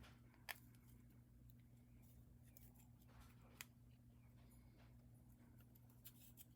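Near silence: room tone with a steady low hum and a few faint clicks of small handling.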